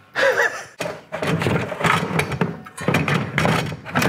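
A SkilSaw TrueHVL worm drive circular saw being fitted into a ToughBuilt StackTech rolling tool box: a run of about five clunks, knocks and scrapes as the saw meets the plastic box.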